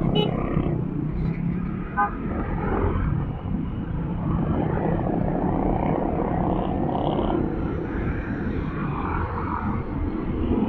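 Honda Click 125i scooter riding in city traffic: steady engine and road rumble as heard by the rider, with a short beep about two seconds in.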